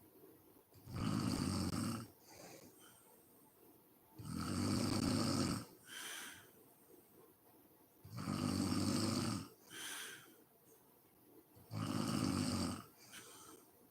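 A sleeping woman snoring: four loud snores in a slow, regular rhythm, about one every four seconds, each followed by a shorter, quieter sound.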